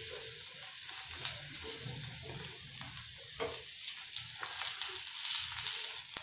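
A tadka of cumin, asafoetida and ginger-garlic paste sizzling in hot oil in a pan: a steady hiss with fine crackles, stirred with a wooden spatula.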